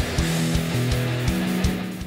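Rock music with electric guitar and drum hits, starting to fade out near the end.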